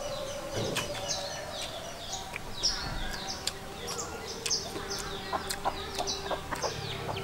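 Birds chirping: many short, high calls repeating several times a second, over a faint steady hum.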